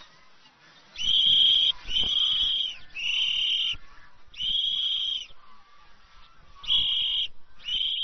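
A whistle blown in about six short blasts, each a steady high tone under a second long. It is the signal used to call the farmed swans back.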